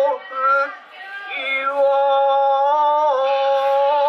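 A high, child-like voice in stylized kabuki chanted delivery: a short phrase, a brief pause, then one long drawn-out note that dips once in pitch before it ends.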